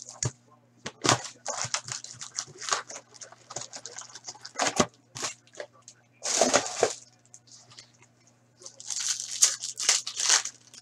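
Foil hockey card pack wrappers being torn open and crinkled, with packs and cards handled, in irregular bursts of crackling and rustling. A faint steady electrical hum runs underneath.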